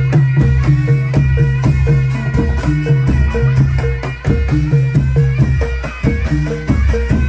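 Live traditional Javanese folk music: quick drum strokes over a repeating low melodic pattern, with higher notes answering in a looping figure.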